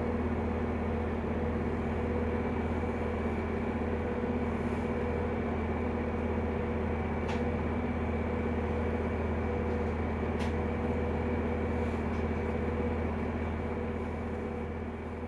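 Steady mechanical hum of a standing train, made of several constant tones with no rise or fall of a passing train. Two short clicks come about 7 and 10 seconds in, and the hum starts to fade near the end.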